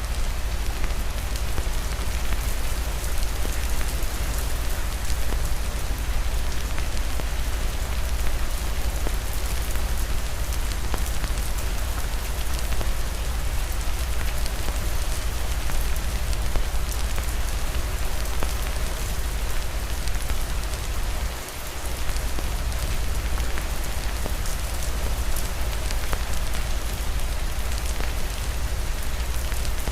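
Steady heavy rain, a dense patter of drops over a low rumble, dipping briefly about two-thirds of the way through.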